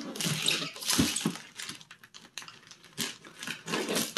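Plastic mailer wrapping on a tall parcel crinkling and rustling as it is handled, with a thump about a second in as the parcel is set down, then scattered rustles and clicks as a blade starts cutting into the plastic.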